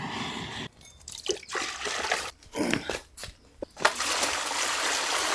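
Water splashing and dripping on a cow's head as it is washed, in irregular splashes, then settling into a steady stream of running water about four seconds in.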